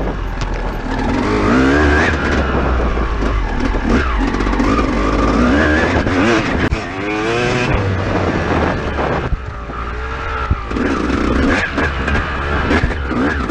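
Dirt bike engine revving as the bike is ridden, its pitch climbing repeatedly and dropping back as the rider works the throttle and gears, with a quieter stretch about two-thirds through and scattered short knocks.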